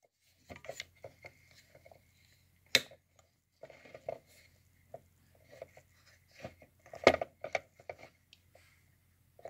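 Handling noise from a plastic digital microscope being fitted and turned in the clip of its metal stand: a run of small clicks and scrapes, with two sharper knocks about three seconds in and about seven seconds in, over a faint low hum.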